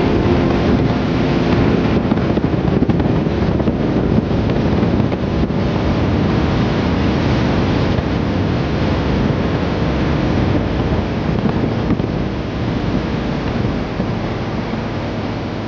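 Steady wind rush over the microphone of a motorcycle riding at road speed, easing slightly near the end.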